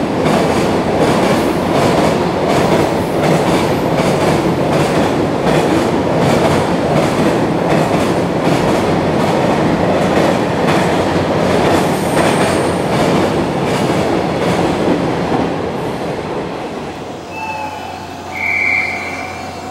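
Long freight train of container and tank wagons passing at speed on an elevated track: a loud, steady rumble with a quick clatter of wheels over rail joints. It fades away in the last few seconds as the end of the train goes by.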